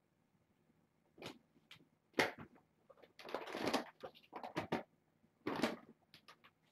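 Kittens playing with toys: scattered light knocks, taps and scuffles, with a longer scraping rustle about three seconds in.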